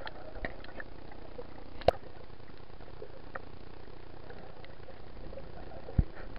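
Underwater sound picked up by a snorkeler's camera: a steady muffled hiss with scattered faint clicks, one sharp click about two seconds in and a low thump near the end.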